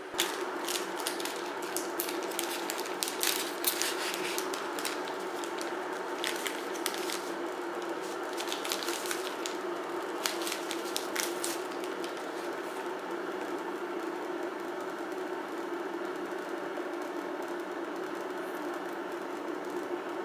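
A foil coffee-bag packet crinkling and crackling as it is handled and torn open, a run of sharp crackles that stops about eleven seconds in. Under it, a steady rumbling hiss from an electric kettle heating water.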